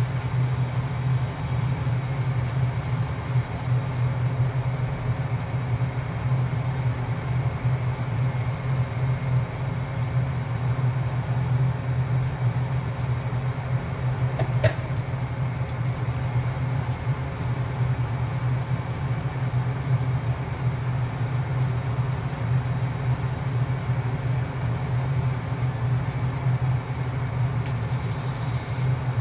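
Washing machine running with a steady low hum that does not let up.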